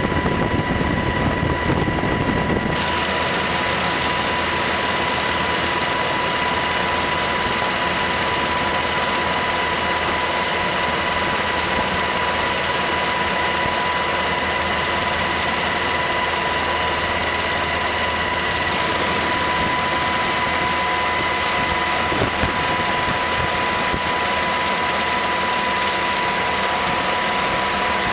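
Steady drone of an aircraft engine with a constant high whine. A heavier low rumble drops away about three seconds in, and the drone goes on unchanged after that.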